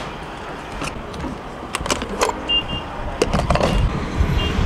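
Fuelling up at a gas pump: a string of sharp clicks and clatters as the pickup's fuel door is pushed open and the pump is handled, with short double beeps from the pump twice.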